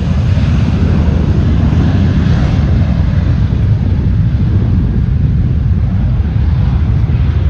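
Airliner's jet engines at takeoff power, a steady rumble, with wind buffeting the microphone.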